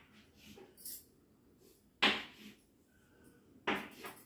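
Chalk writing on a blackboard: a few separate short strokes and taps, a faint one about a second in, the loudest about two seconds in, and another near the end.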